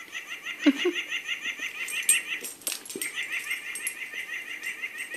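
A dog's plush toy giving rapid, evenly repeated high chirps, about eight a second, as the dog chews and mouths it; the chirping breaks off twice. A brief low vocal sound comes about a second in.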